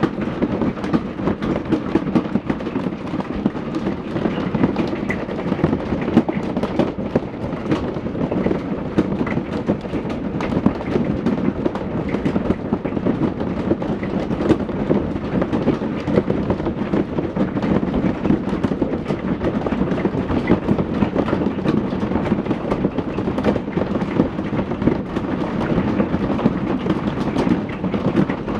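Hailstorm: hailstones pelting hard surfaces in a dense, unbroken clatter of impacts.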